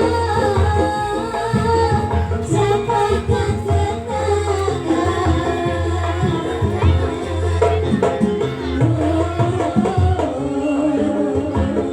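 Live Javanese jaranan ensemble music: hand drums played in a busy rhythm over a deep low tone, with a singing voice.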